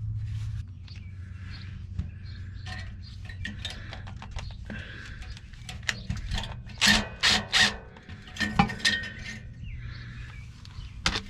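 Clicks and clinks of metal handling under the truck, with a few short loud bursts about seven and nine seconds in, as a cordless drill tries to drive stainless steel screws into a stovepipe patch on the exhaust pipe. The screws are not going in straight.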